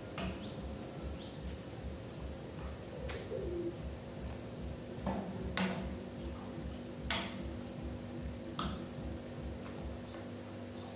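Metal spoons and chopsticks click and tap against bowls a handful of times as two people eat noodles, over a steady high-pitched cricket chirr.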